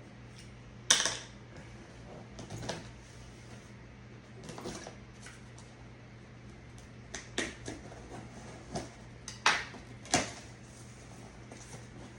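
Shipping box and packing material being handled and opened: scattered clicks, taps and short crinkles, the sharpest about a second in and two more near the end.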